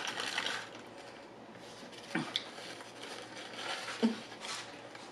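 Paper burger wrapper crinkling as a half-eaten burger is set down in a cardboard tray, fading within the first second, then quieter rustling of a paper napkin, with two short sharp clicks about two seconds apart.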